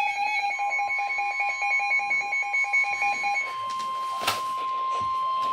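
NOAA Weather Radio warning alarm tone: a steady tone of about 1050 Hz starts about half a second in and holds. For the first three and a half seconds a fast pulsing alert beep, about eight pulses a second, sounds over it. A single click about four seconds in.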